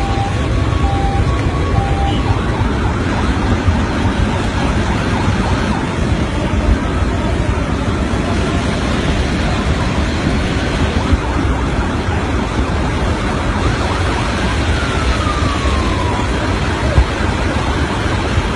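Floodwater rushing in a steady, loud torrent. A few short beeping tones sound in the first two seconds, and a brief falling tone about three-quarters of the way through.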